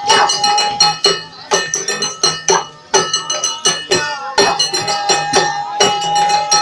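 Live percussion music for a folk dance: drum strokes in a quick, uneven rhythm under the ringing of small cymbals or bells. A long held high note sounds at the start and again through the second half.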